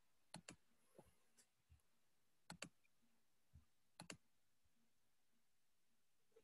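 Faint computer mouse clicks: three quick double-clicks about a second and a half apart, with a few softer taps between them.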